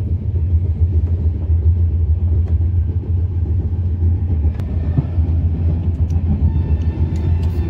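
Steady low rumble of a moving passenger train heard from inside the coach, with a few faint clicks and knocks a little past halfway.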